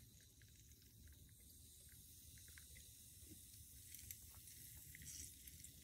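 Very faint sound of a lemon being squeezed by hand over a plastic spray bottle, with small irregular ticks as drops of juice fall into the water inside.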